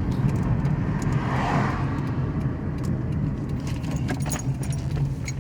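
Car engine running with a steady low rumble. A few light clicks come near the end.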